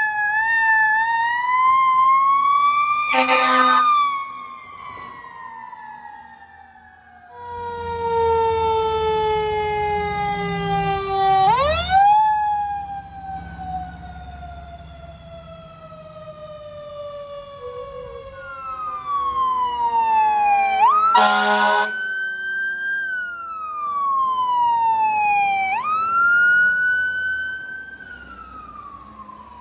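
Fire truck sirens on emergency response, each winding up sharply and then falling away slowly, cut with three short, loud horn blasts. A heavy truck engine rumbles beneath the sirens partway through.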